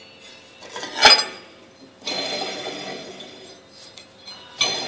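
Steel flue damper plate on a smoker's chimney pipe being swung on its centre bolt, metal on metal: a sharp clank about a second in, then a grinding scrape with a ringing tone, and another clank near the end.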